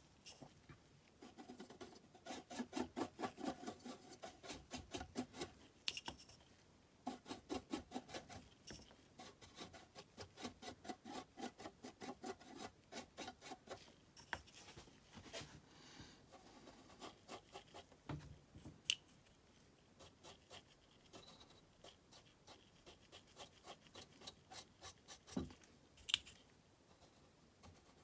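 Small stiff brush scrubbing black weathering chalk onto the ribbed side and door of an O scale model boxcar. It makes faint, quick back-and-forth scratching strokes, about four or five a second, in runs broken by short pauses. There are a couple of light ticks near the end.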